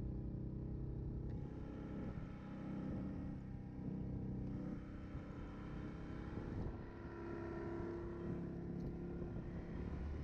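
Yamaha Grizzly ATV on Camso tracks, its single-cylinder engine running steadily under way, with engine speed shifting slightly up and down.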